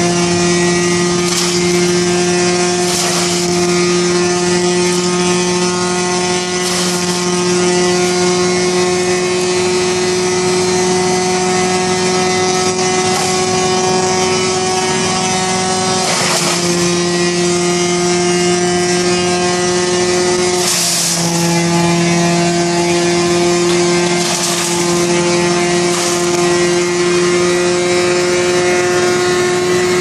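1974 Wayne wood chipper running steadily at speed, with a short crackling burst each time branches are chipped, several times. The two biggest bursts, about halfway and two-thirds through, pull the engine note down briefly under load.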